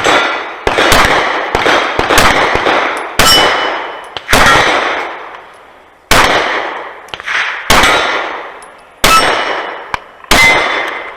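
A Sig P320 Carry pistol firing a string of about a dozen shots, roughly one a second, with steel plates ringing as they are hit.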